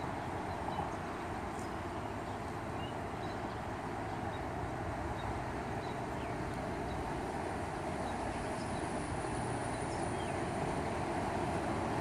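Steady outdoor background noise: an even rushing hiss with no distinct events, and a faint thin high tone near the end.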